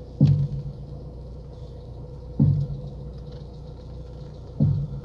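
Lada Priora front right suspension knocking three times, about two seconds apart, as the steering wheel is turned; each knock is sharp with a short low ring after it, over a steady low hum. The owner suspects the coil spring jumping off the strut bearing or its seat rather than the new strut mount.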